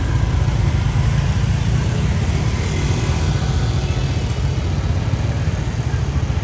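Steady low rumble of wind buffeting the microphone, over a haze of street traffic.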